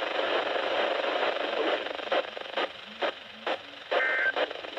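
Radio hiss, then regular clicks about twice a second, and near the end a short burst of two-tone digital data screech from an Emergency Alert System broadcast. Its shortness fits the SAME end-of-message (NNNN) burst that closes an alert.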